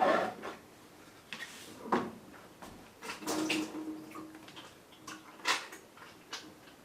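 Plastic refrigerator ice maker being handled and moved, giving scattered clicks and knocks of plastic parts.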